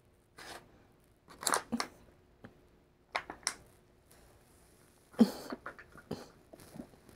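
Phone handling noise: the microphone brushing and scraping against clothing as the phone is moved, an irregular run of short rustles and clicks.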